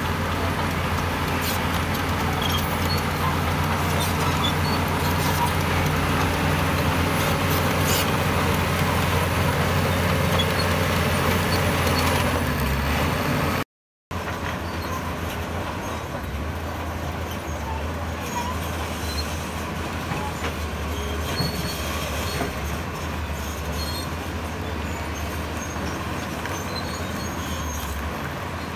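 Heavy diesel construction machinery running steadily, with scattered clanks. It cuts out for a moment about 14 seconds in, then carries on a little quieter.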